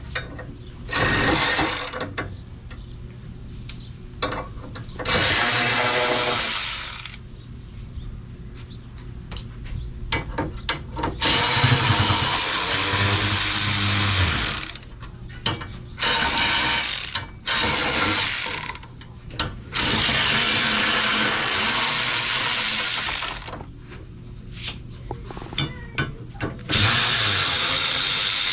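A power tool run in about seven short bursts of one to three seconds each, with pauses between, used to take a part off.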